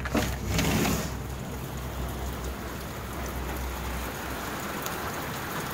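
Steady heavy rain falling, an even hiss of rain on surfaces. A short, louder noise sounds in the first second.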